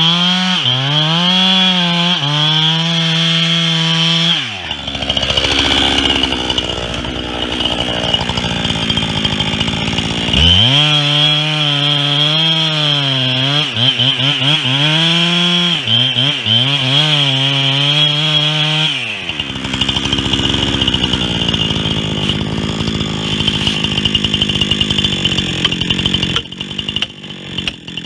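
Two-stroke chainsaw making a felling cut into the base of a walnut trunk at full throttle, its pitch wavering under load. It drops to idle about four seconds in, revs up and cuts again for about eight seconds, then drops back to idle.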